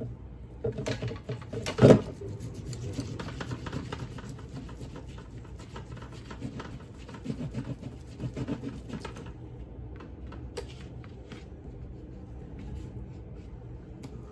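Cooking gear being handled: a sharp knock about two seconds in, then several seconds of dense crackling clicks that stop about nine seconds in, followed by a few scattered clicks.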